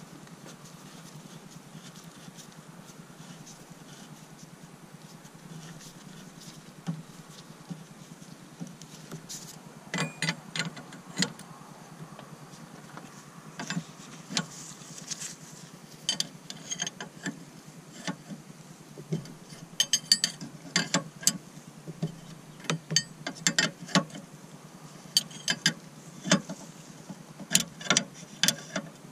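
Irregular sharp clicks and light knocks, like hand tools and parts being handled, coming more often from about ten seconds in and thickest near the end, over a steady low hum.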